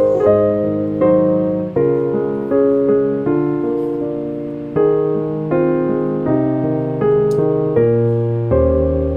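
Background music: slow piano chords, each struck and left to fade, changing about once a second.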